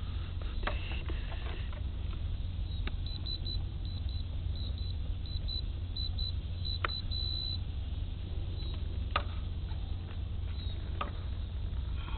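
Radio-control transmitter beeping as its buttons are pressed to set servo reversing: a run of short, high beeps ending in a slightly longer one, with a few sharp clicks.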